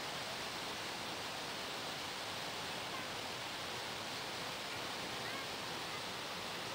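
Steady rushing noise of a moving boat's churning wake and the wind blowing past at its stern.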